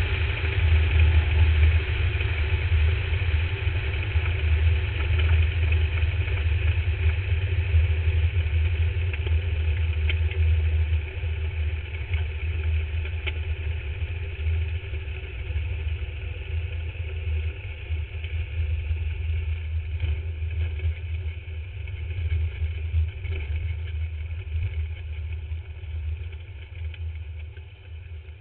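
A drag-racing car's engine runs low and steady with a deep rumble, heard from on board the car. It turns quieter about eleven seconds in and fades further near the end.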